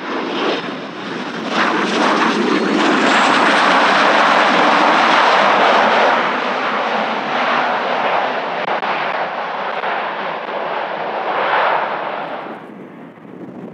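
Dassault Falcon 2000EX business jet's twin turbofans passing close on arrival: a loud, broad jet roar that builds over the first couple of seconds, holds, then drops away sharply near the end.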